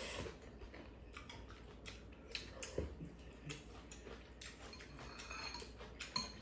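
Faint sounds of people eating noodles: a slurp at the very start, then chewing, with small clicks of a metal spoon and chopsticks against ceramic bowls.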